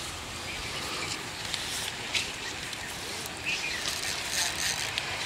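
Steady outdoor background noise with a low rumble, scattered light clicks, and faint distant voices in the second half.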